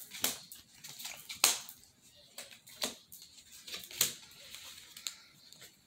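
Cards being drawn from a deck and laid down one after another on a wooden desk: a series of about five sharp snaps and slaps, the loudest about a second and a half in.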